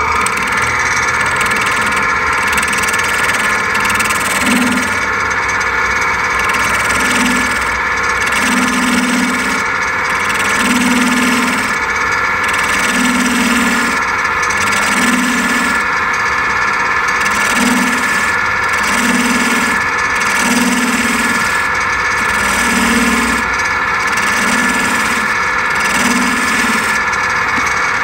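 Wood lathe running while a hand-held tool scrapes the end face of a spinning purpleheart blank, a steady loud hum and hiss with a low swell repeating about every two seconds.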